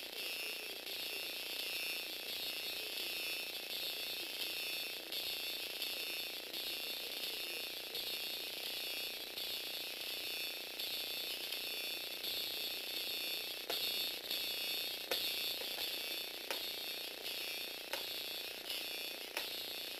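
Small electric gearbox motor (Tamiya 4-speed crank-axle gearbox with FA-130 motor) running steadily with a high whine and gear whirr, swelling and fading in an even rhythm as it drives the legs of a Lego Technic walking robot. In the second half, light sharp clicks come about every second and a half.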